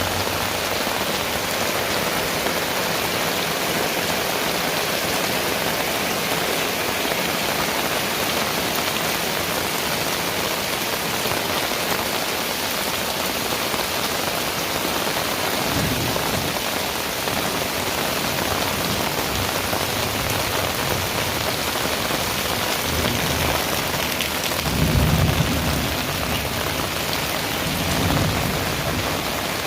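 Heavy rain falling steadily and hard. In the second half, thunder rumbles low several times, loudest about five seconds before the end.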